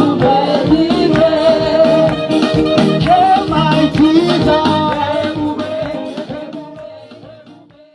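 African church praise music: singing over a steady drum beat, fading out over the last few seconds.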